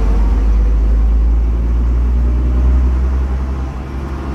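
Rear-mounted six-cylinder diesel engine of a 1973 ECW-bodied Bristol RE bus running loud with a deep rumble, heard from inside the saloon near the back. The level eases off a little shortly before the end.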